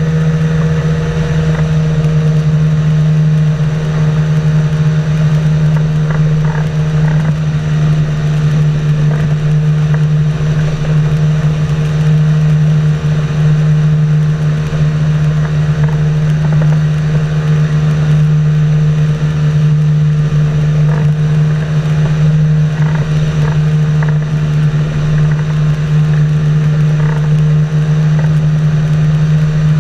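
Boat engine running at a steady speed, a constant low drone with a fainter higher hum above it.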